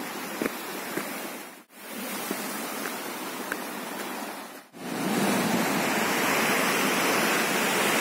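Steady rush of a cascading mountain stream. The sound cuts out briefly twice and comes back louder after the second break, about five seconds in.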